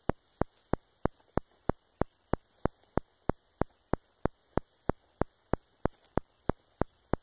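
Sharp, evenly spaced clicks at about three a second in a steady, machine-like rhythm, over a faint hiss.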